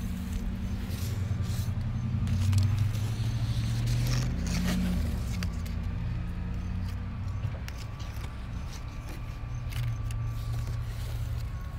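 Low motor hum whose pitch shifts and swells about three seconds in, with leaves brushing and scraping against the phone in between.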